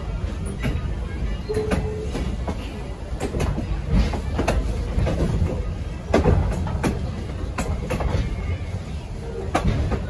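Passenger coach rolling slowly, heard from inside the wooden car: a steady low rumble from the wheels on the rails, with irregular clicks and knocks.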